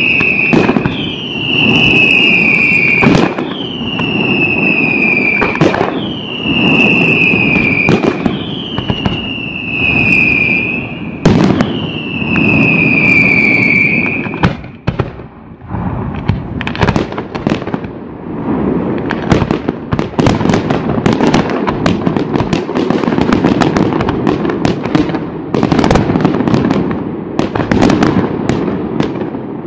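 Fireworks display. About six whistling fireworks go off in turn, each a sharp bang followed by a falling whistle, roughly every two seconds, over a rumble of bursts. About halfway through the whistles stop, and a dense, fast crackle of many small bangs follows and thickens toward the end.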